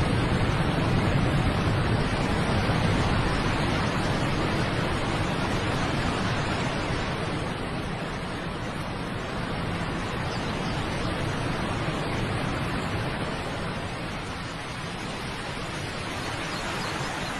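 Waterfall rushing: a steady, dense wash of falling water, easing a little in level over the stretch.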